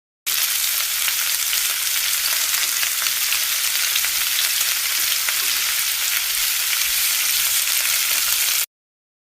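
A steady, even hiss that cuts in abruptly just after the start and cuts off abruptly shortly before the end.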